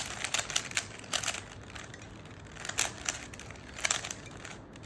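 A 3x3 Rubik's cube being turned quickly by hand: irregular clusters of sharp plastic clicks and clacks as the layers twist, thickest in the first second and again near the three- and four-second marks.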